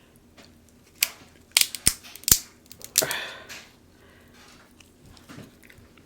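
King crab leg shells being cracked open: about five sharp snaps between one and three seconds in, the loudest just after two seconds, with a brief crunching crackle after the last one.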